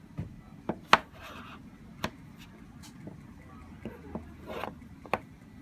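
Packaging being handled during an unboxing: a string of light knocks and clicks, the sharpest about a second in, with short scraping rubs between them.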